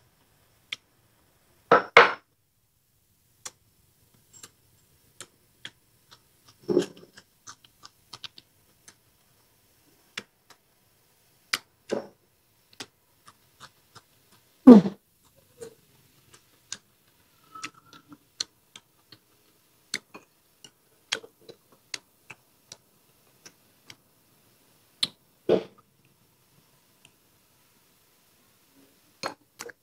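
Close-miked eating sounds of a person chewing with her mouth close to the microphone: many small wet chewing clicks and lip smacks. There are four louder, short bites or crunches about 2, 7, 15 and 25 seconds in.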